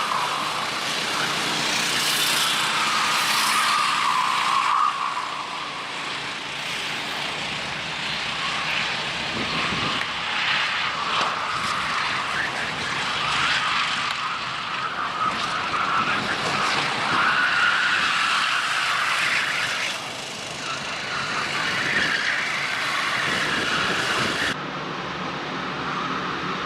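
Racing kart engines running at high revs. The pitch rises and falls as the karts accelerate and brake through the corners, and the sound changes abruptly near the end.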